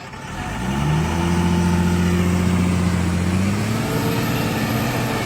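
Heavy diesel machine's engine revving up and working under load as it climbs a rough slope, its pitch rising over the first second and climbing again about three and a half seconds in.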